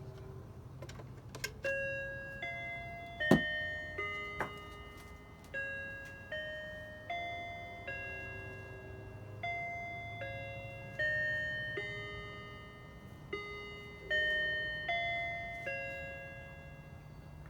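Sunbeam quartz wall clock playing its electronic chime tune: a slow melody of about seventeen bell-like notes at changing pitches, each ringing out and fading. A sharp click sounds about three seconds in.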